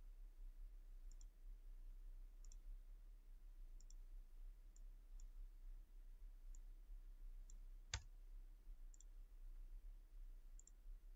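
Faint computer mouse clicks, each a quick press-and-release pair, coming every second or so, with one louder, sharper click about eight seconds in, over a low steady hum.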